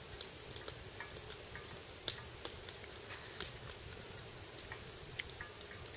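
Faint, scattered sharp clicks and ticks as someone eats a spoonful of hot chili, over a low steady hum; the two strongest clicks come about two seconds and three and a half seconds in.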